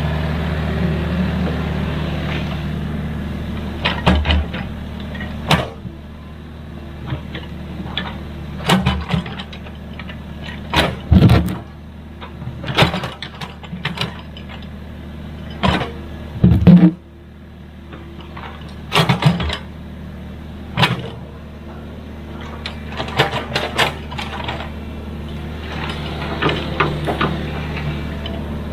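Excavator's diesel engine running steadily, with sharp metal clanks and knocks every second or two, the loudest a little past halfway through.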